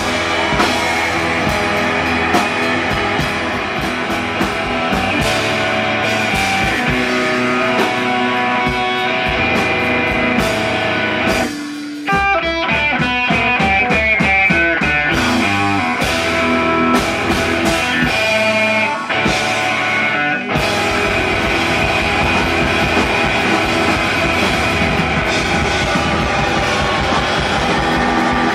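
Punk rock band playing loud: distorted electric guitar over a pounding drum kit. About twelve seconds in the sound thins to a sparser, guitar-led passage with less bass, and the full band crashes back in about eight seconds later.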